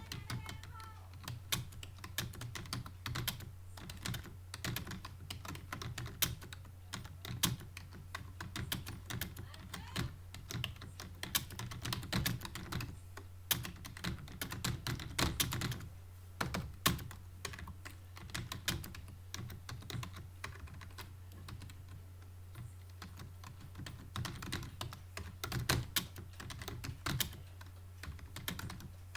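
Fast typing on a computer keyboard: a rapid, uneven stream of key clicks, over a steady low hum.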